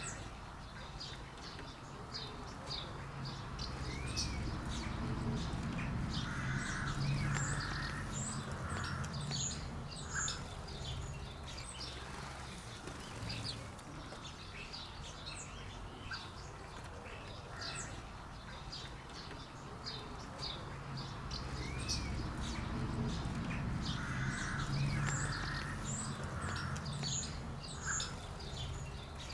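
Small birds chirping and calling in many short, high notes, with a low rumble that swells and fades twice.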